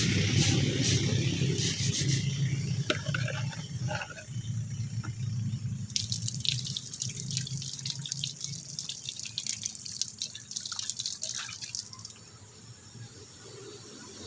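Water pouring over hands and a stone and splashing into a plastic cup as the stone is rinsed, in the middle of the clip, stopping about two seconds before the end. A low steady hum at the start fades over the first few seconds.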